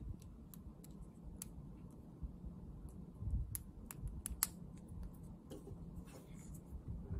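Quiet, scattered light clicks and plastic handling sounds of a SIM card being pressed out of its card frame and fitted into a circuit board's SIM card holder.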